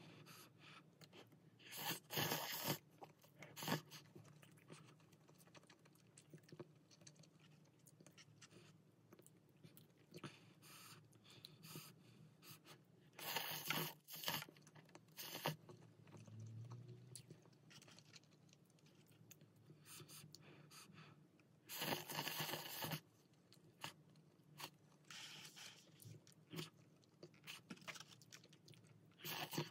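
Close-up eating of cup ramyeon: three loud slurps of noodles, near the start, around the middle and about three-quarters through, with quieter chewing between.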